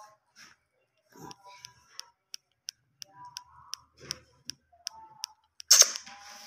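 A pet parrot clicking sharply and evenly, about three clicks a second, with soft short chirps between the clicks, then one loud harsh squawk near the end.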